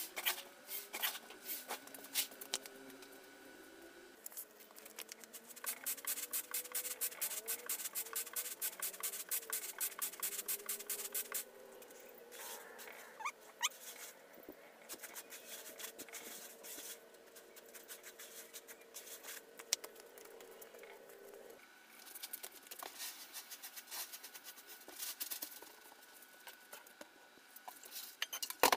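Dry rice grains rattling and rustling as they are scooped from a sack with a plastic container and worked over to clean them. About five seconds in comes a spell of fast, even rattling strokes lasting several seconds.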